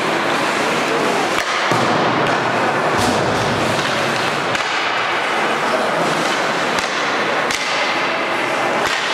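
Ice hockey play in a rink: a steady wash of skating and arena noise, broken by several sharp knocks of sticks, puck and boards at irregular moments.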